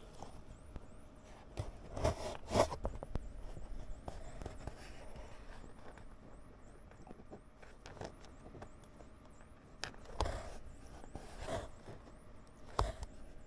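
Handling noise of a small wooden kit part and hand tools on a cutting mat: scattered light knocks and rustles, a few louder ones about two seconds in and again from about ten seconds on.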